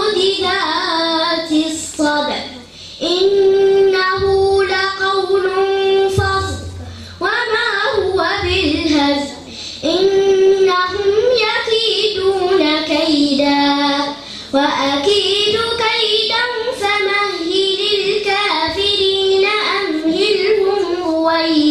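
A young girl reciting the Quran in melodic tajweed chant, in long drawn-out phrases with some notes held steady and brief pauses between phrases.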